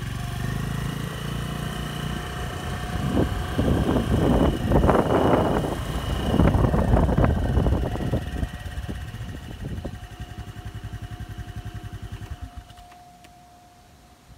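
A motor vehicle's engine running close by, getting louder and rougher in the middle, then settling to an even idle throb that stops about 13 seconds in.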